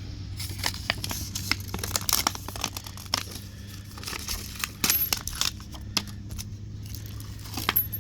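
Scattered clicks, ticks and crackles as an Amazon Kindle tablet is pried apart by hand and a thin film is peeled from its layers, with a low steady hum underneath.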